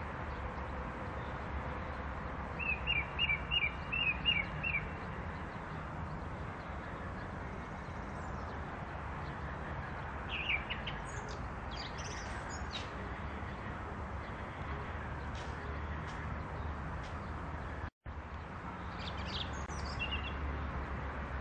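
Small bird chirping: a quick run of short, falling chirps a few seconds in, then scattered chirps later, over a steady low background rumble.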